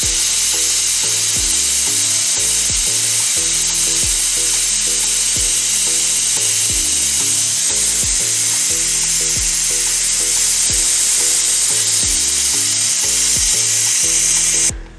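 Pressure cooker whistling on a gas stove: steam jets out of the weight valve in a loud, steady hiss that cuts off suddenly near the end. This is the cooker at full pressure giving one of the whistles counted to time the cooking.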